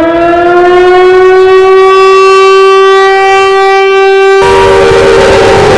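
Civil defence siren used as an earthquake warning alarm, winding up quickly from a low pitch into a steady tone. About four and a half seconds in, a harsh layer of heavy clipping distortion suddenly floods in over it while the siren tone carries on.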